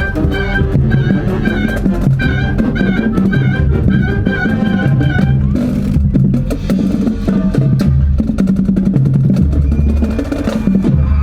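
A wind band playing live: sustained brass and woodwind notes over a steady drum beat. About six seconds in, the music shifts to a more percussion-heavy passage with dense drum strokes.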